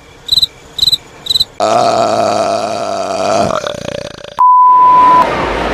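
Retro camcorder-style glitch sound effect: three short high electronic beeps about two a second, then a buzzing electrical hum with tape-like static, then a steady pure beep tone held for under a second near the end.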